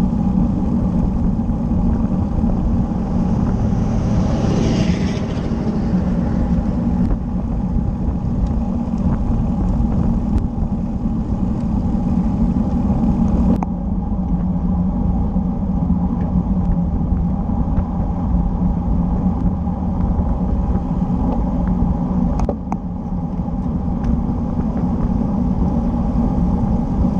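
Wind rumble and tyre-on-road noise picked up by a bicycle-mounted camera riding at speed. A brief louder rushing hiss comes about five seconds in.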